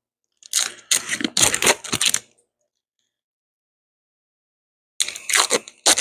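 Quick runs of small hard clicks and rattles from parts and tools being handled during snowmobile wiring work, in two bursts with a silent gap of about three seconds between them.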